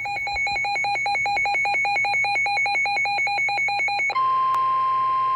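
Rapid electronic alert beeping, about nine beeps a second. About four seconds in it gives way to a steady single-pitch 1050 Hz NOAA Weather Radio warning alarm tone, the signal that a warning message follows.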